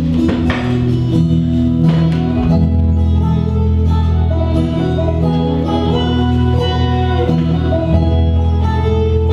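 Bluegrass-style music with plucked guitar and banjo over a steady bass line.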